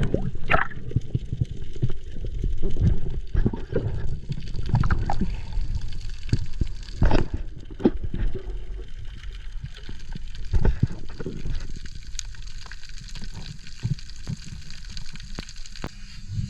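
Water sloshing and gurgling around a camera in the sea, heard muffled and heavy in the low end, with many short knocks and clicks scattered through it.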